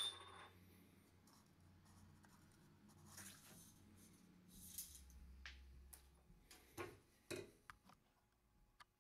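Near silence with faint handling noises from the metal tube of a drywall automatic taper being held and turned in the hands: a short click at the start, soft rubbing in the middle, and a few light knocks near the end.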